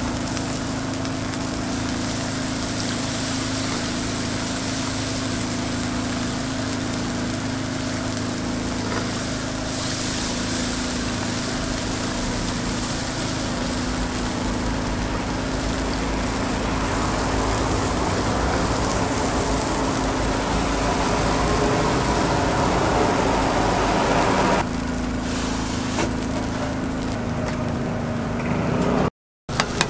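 Takoyaki batter sizzling on a hot takoyaki grill plate as it is poured on, over a steady mechanical hum. The sizzle grows louder as more of the plate is covered, then the sound changes abruptly near the end.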